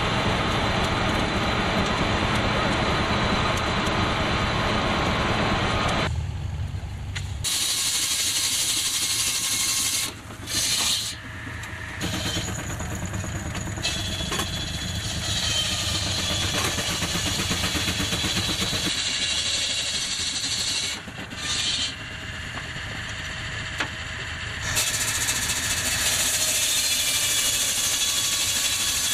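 Steam traction engine and sawmill running together, a steady mechanical noise with steam hissing. The sound shifts abruptly several times and dips briefly twice.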